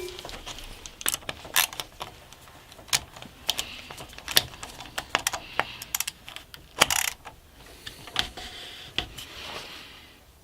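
Irregular small clicks, knocks and brief scrapes of hand-fitted wood and metal parts: a plywood camera quick release mount being bolted onto its arm with an M6 bolt and handled.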